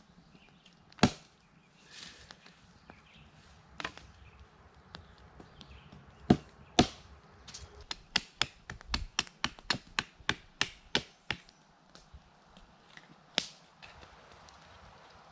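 Sharp chopping strikes of a blade into a wooden stick. A few spaced strikes come first, then a quick run of about a dozen at three or four a second, then one more near the end.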